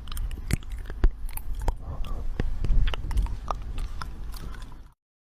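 Irregular crunching and sharp clicks over a low rumble, cutting off abruptly shortly before the end.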